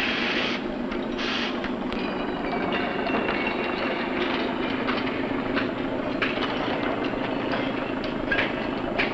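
Port cargo-handling machinery working: a steady mechanical rumble with irregular metallic clicks and knocks, a short hiss about a second in, and a thin metallic squeal that comes and goes about two to four seconds in.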